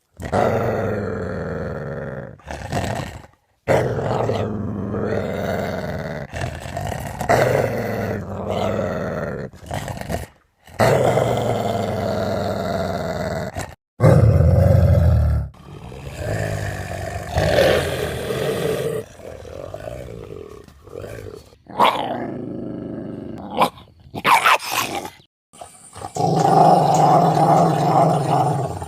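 Large dogs growling, a series of separate growls one after another with short silent breaks between them.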